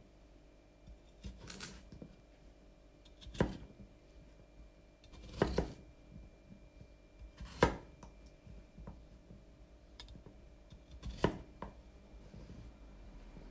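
Kitchen knife cutting through vegetables on a cutting board: a handful of separate slow cuts, one every two seconds or so.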